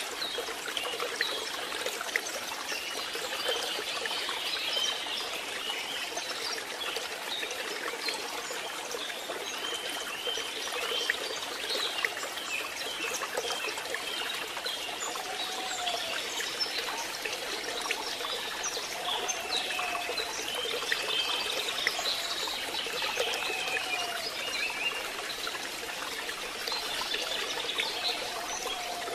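Steady rain falling and trickling, a dense even patter, with a few faint short high-pitched calls now and then.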